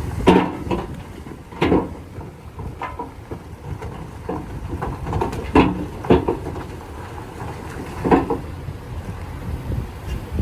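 Heavy earthmoving machinery running with a low rumble, broken by irregular clanks and knocks, several of them louder.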